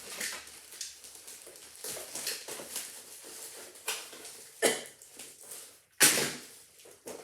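Package being handled and worked open: rustling and scraping of packaging, broken by several sharp noisy bursts, the loudest about six seconds in.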